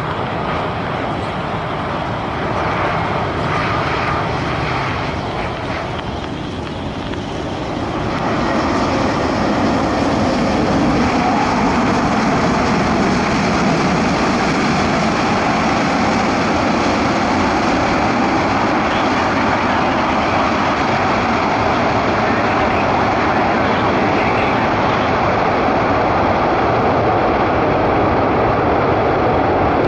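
Jet noise of an Airbus A380-841 with its four Rolls-Royce Trent 970 engines, landing in rain: a steady rushing sound that grows louder about eight seconds in and stays loud as the aircraft passes close and rolls out on the wet runway.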